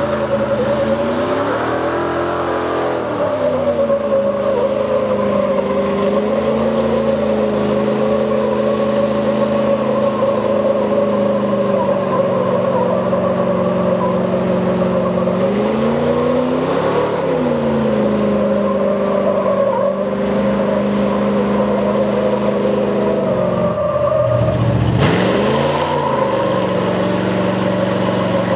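Pickup truck engines running hard at steady high revs under load in a tug-of-war pull. The note wavers a couple of times, then drops sharply with a burst of noise about 25 seconds in before picking back up.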